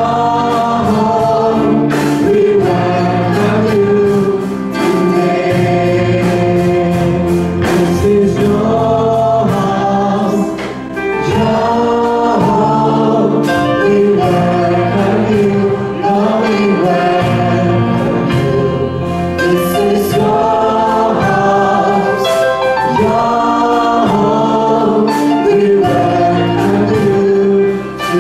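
Congregation and a stage worship team singing a hymn together, accompanied by a band with drums and electric guitar; the drum and cymbal hits keep a steady beat under the held sung notes.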